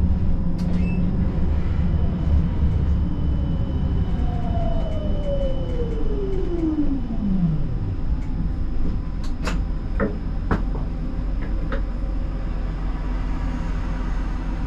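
Siemens Combino tram running, heard from the driver's cab: a steady low rumble of wheels on rail, with the electric traction drive's whine falling smoothly in pitch over about four seconds as the tram slows. A few sharp clicks follow near the end.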